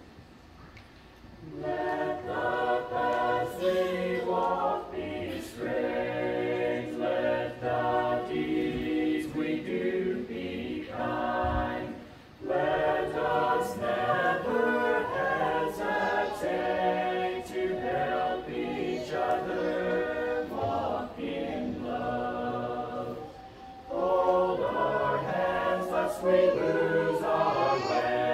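A small mixed choir of men's and women's voices singing a cappella, in sung phrases with short breaks between them, the longest near the start.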